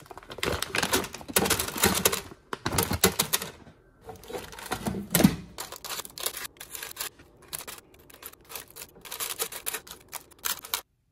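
Perforated parchment liner rustling in a plastic air fryer basket, then chopsticks clicking and tapping as breaded croquettes are set down on the paper. The clicks come in quick clusters, with one louder knock about five seconds in.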